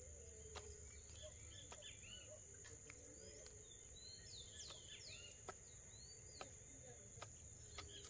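Faint birdsong ambience: many short chirps and downward-gliding calls from small birds, over a steady high-pitched whine, with scattered sharp clicks.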